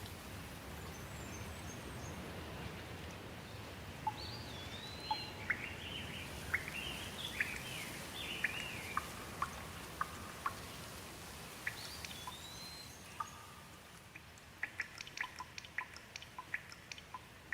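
Rain falling steadily while several birds chirp, with short rising and falling calls. Near the end the rain thins and a quick run of single drops ticks.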